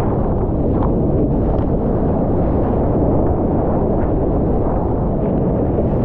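Wind buffeting the action camera's microphone together with rushing water as the surfboard rides a wave: a loud, steady low rush with no breaks.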